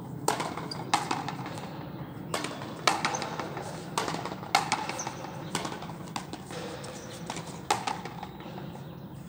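Frontenis rally: a small rubber ball struck by stringed rackets and smacking against the frontón wall, a string of sharp cracks that ring off the court, irregularly spaced and often in pairs about half a second apart.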